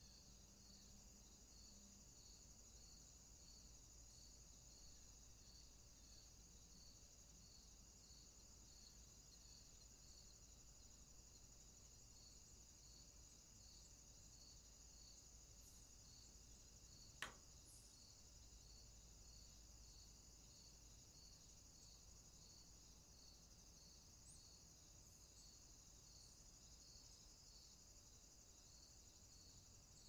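Faint insect chirping, a regular pulse roughly three times every two seconds over a steady high-pitched insect hiss. One sharp click about halfway through.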